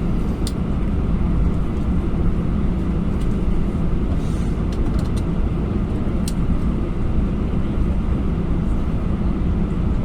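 Airbus A321's CFM56 jet engines running steadily, heard inside the rear cabin as a loud, even rumble with a low hum, with a couple of faint ticks from the cabin.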